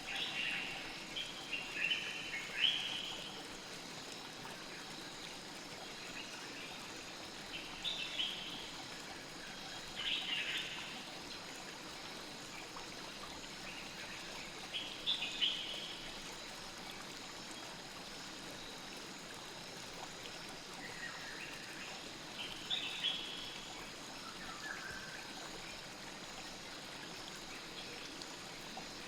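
Night forest ambience: a steady rush of a flowing river or stream, with short high chirping calls in small clusters every few seconds.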